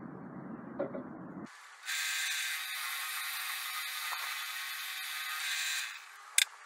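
Benchtop drill press motor running steadily for about four seconds, starting and stopping abruptly, followed by one sharp click.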